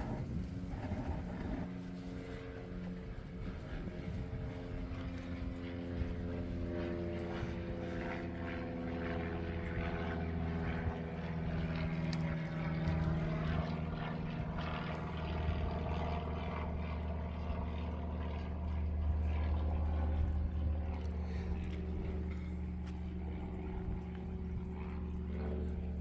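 A steady engine drone: a low hum with a few higher tones that drift slowly in pitch. The low part grows a little stronger about halfway through.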